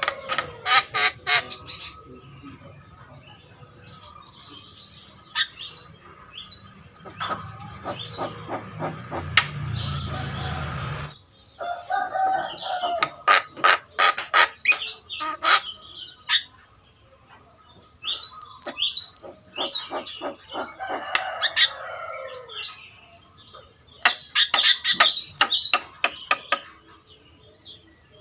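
Javan myna (jalak kebo) singing hard, a rapid jumble of sharp chirps, clicks and whistled notes delivered in bursts of a few seconds with short pauses between.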